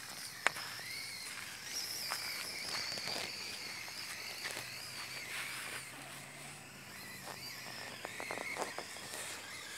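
Electric drive motor and gearbox of a 1/10-scale RC rock crawler whining as it climbs, the pitch rising and falling with the throttle. Scattered clicks and crunches come from its tyres and loose stones on the rocks, with one sharp click about half a second in.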